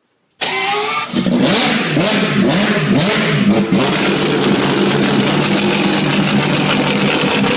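Wankel rotary engine revving, cutting in suddenly about half a second in: the revs rise and swing up and down for the first few seconds, then hold a steady pitch.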